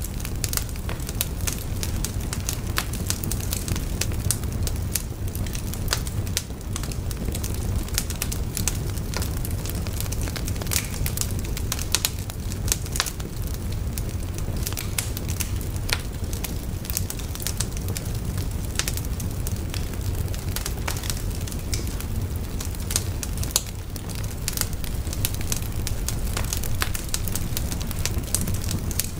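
Wood fire burning, with frequent sharp crackles and pops over a steady low rumble.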